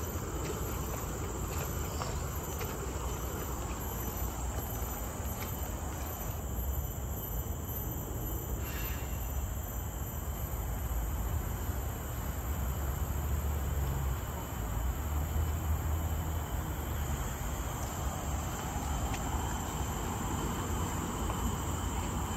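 Steady high-pitched chorus of forest insects, several unbroken tones held throughout, over a low rumble.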